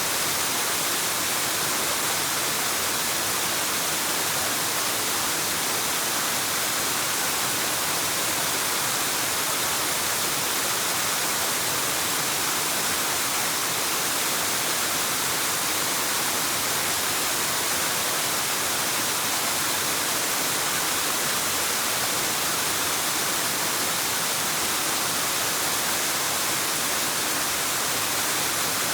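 Waterfall: a steady, even rush of falling water, mostly hiss, with no change in level.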